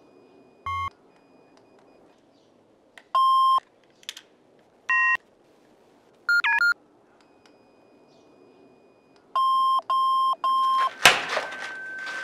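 A handheld electronic gadget beeping: single electronic beeps at one pitch, one of them longer, then a quick warbling pair and three beeps in quick succession. Near the end a sudden loud hit cuts in, followed by a steady high ringing tone.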